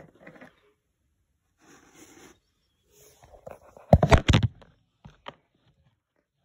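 Handling noise: faint scraping and rustling, then a loud cluster of knocks and rubbing about four seconds in as the phone and toy figures are handled, followed by two sharp clicks.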